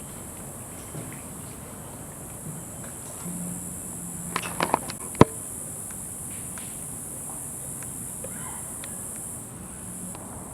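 Steady high-pitched drone of insects, with a cluster of sharp clicks about four seconds in and one louder knock just after. The drone fades out near the end.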